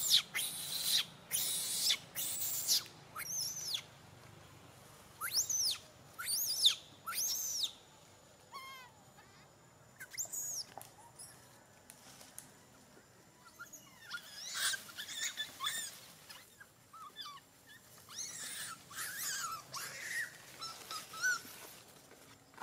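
Young macaque giving repeated shrill, high-pitched screaming calls, each one rising and falling in pitch, in two long runs with a quieter gap of a few seconds between them.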